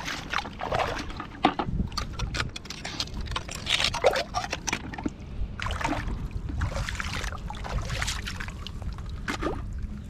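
Shallow seawater sloshing and splashing in a tidal pool among oyster-crusted rocks, with many short clicks and scrapes over a low steady rumble.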